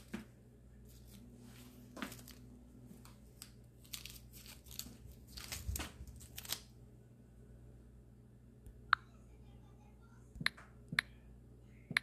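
Crinkling and rustling with scattered clicks and crackles over the first seven seconds, then a few isolated sharp clicks near the end.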